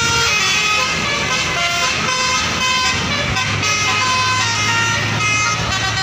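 Bus 'telolet basuri' multi-tone horn playing a quick tune of short notes at changing pitches, over a bus engine whose low drone steadies and grows about three seconds in.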